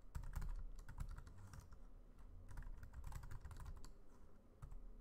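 Typing on a computer keyboard: two quick runs of key clicks, with a short pause about two seconds in and a few single keystrokes near the end.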